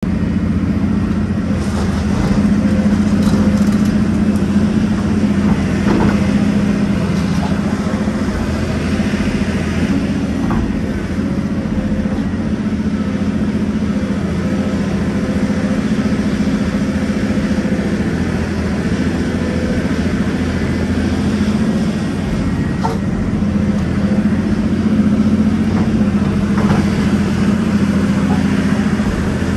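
Volvo EC700 excavator's diesel engine and hydraulics, heard from inside the cab, running steadily under load as it digs and loads soil, with a few faint knocks.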